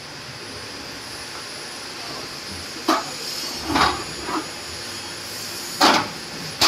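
Aluminium mobile scaffold tower parts knocking together as the frame and platform are fitted by hand: a few sharp knocks, one about three seconds in, two close together around four seconds and a louder one near six seconds, over a steady hiss.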